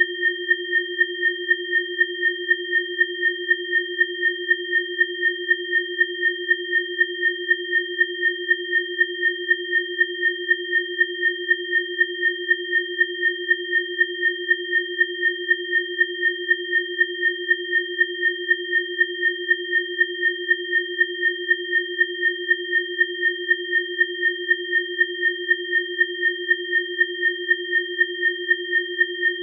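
Electronically generated sine tones, one low and two high, held steady and layered, with the sound pulsing at an even, fast rate.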